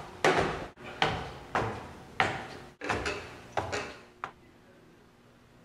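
Footsteps climbing wooden stairs, about seven evenly spaced steps a little over half a second apart, stopping about four seconds in.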